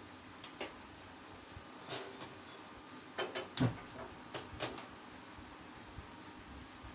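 Gas stove burner being turned back on and relit after going out: a scattering of sharp clicks and knocks, the loudest a little past three seconds in.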